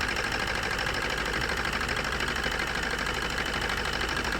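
Maruti Suzuki Swift four-cylinder diesel engine idling roughly with a fast, even pulsing, its first injector unplugged and no change in the running. It is running on only two cylinders: injectors 1 and 4 are not firing, the cause of its misfire and abnormal vibration.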